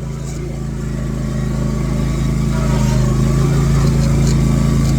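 Riding lawn mower engine running steadily, its hum growing louder over the first three seconds, then holding.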